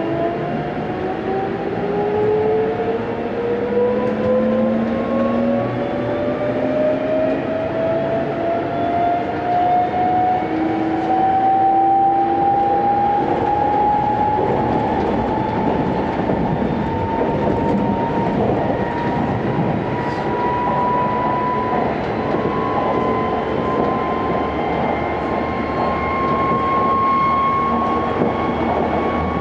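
Tokyo Metro 16000 series train running, its permanent-magnet synchronous traction motors and inverter whining and rising steadily in pitch as the train accelerates, over continuous wheel-on-rail rumble.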